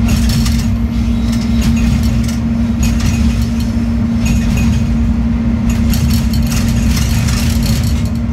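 Locomotive engine running steadily with a low drone and hum, heard from inside the driving cab. Irregular clicking and rattling comes in clusters over it as the train rolls along the track.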